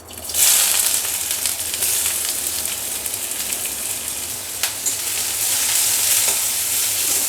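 Chopped onion hitting hot mustard oil in a kadai: a loud sizzle that starts suddenly a fraction of a second in and keeps on steadily as it fries, with a sharp utensil tap a little past the middle.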